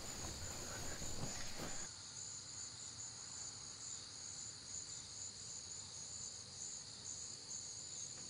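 Crickets chirping: a faint, steady, high-pitched night-time trill.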